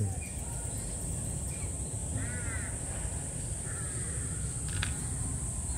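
A few faint, short animal calls, one about two seconds in and another near four seconds in, over a steady low background rumble.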